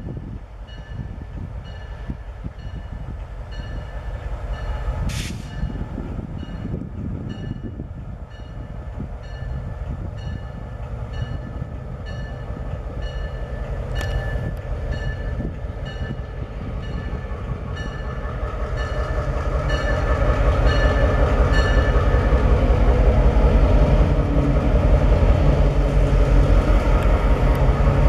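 EMD diesel locomotive approaching, its engine rumble growing steadily louder as it draws close, with a locomotive bell ringing at an even beat of about two strokes a second.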